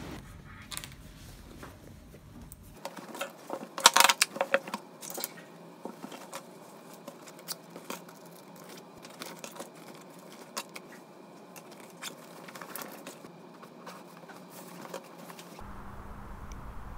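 Rustling of a canvas tote bag and a zip pouch as small items are packed, with light clicks and clinks and a louder clatter about four seconds in. Near the end this gives way to a steady outdoor traffic hum.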